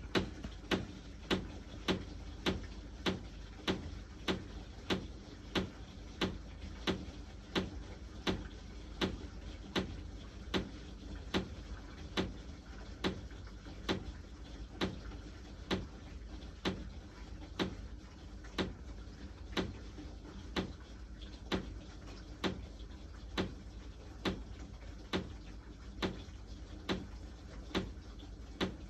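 Sharp ticking knocks from the ceiling around a washing-machine drain pipe, repeating fairly regularly a little faster than once a second over a low steady hum. The owner suspects the upstairs neighbour's washing machine as the cause.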